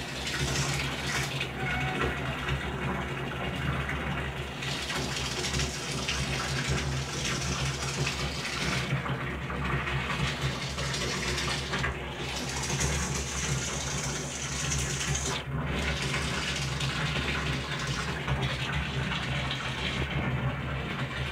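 Water running steadily from a tap: an even hiss whose brightness shifts now and then as the flow changes, over a low steady hum.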